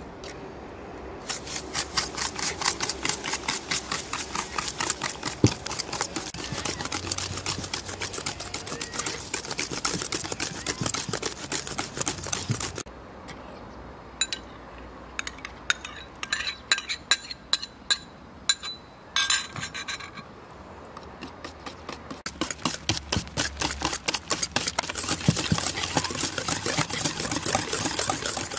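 Wire whisk beating eggs and sugar in an enamel bowl: a fast, continuous run of scraping clicks. In the middle the whisking stops and a spoon clinks against a bowl several times, some strikes ringing briefly, before the whisking starts again.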